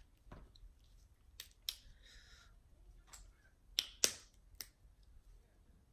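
Close-up eating sounds from a seafood boil: a scatter of about seven sharp clicks and cracks, with a short crunch about two seconds in.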